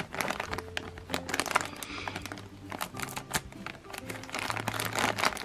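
Black plastic mailer bag crinkling and crackling as it is handled and cut open with scissors, with light background music.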